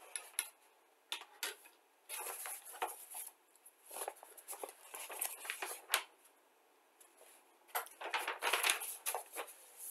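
Small plastic model-kit parts and tools being handled and rummaged through on a workbench: irregular clicks, light rattles and rustling in bursts, busiest about two to six seconds in and again near the end.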